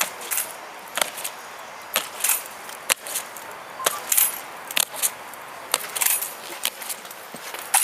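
Honor guard marching in slow goose step: boot heels striking stone paving in a steady beat of about one step a second, each a sharp click, some doubled where the soldiers' feet land slightly apart.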